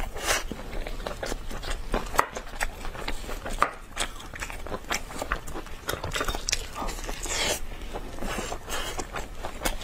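Close-up eating sounds of a person biting and chewing meat off a rack of saucy braised ribs: many short, irregular wet smacks and clicks of lips and mouth.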